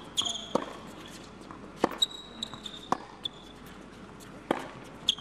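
Tennis ball bouncing and being struck on an indoor hard court: sharp single knocks about a second apart, the loudest about four and a half seconds in. Short high squeaks of tennis shoes on the court fall between the knocks.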